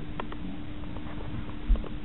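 A kitten's paws tapping and scuffing on a tatami mat as it plays: a few light taps, with a thump about three-quarters of the way through, over a steady low hum.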